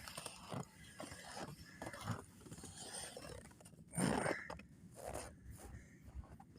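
Crunching, scraping steps through deep snow at an uneven pace of about two a second, with one louder scrape about four seconds in.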